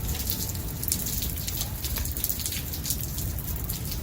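Steady rain falling, with many irregular sharp drop taps over a low, even rush.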